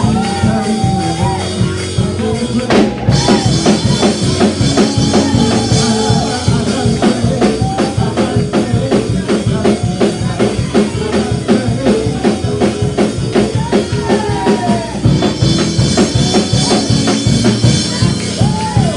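Fast church praise-break music: a drum kit keeps a quick, driving beat under held instrument chords, with voices singing and calling over it. A cymbal crash comes in about three seconds in.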